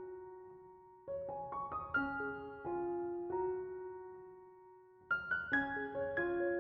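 Background piano music: short phrases of struck notes that ring and fade away, with a new phrase starting about a second in and another about five seconds in.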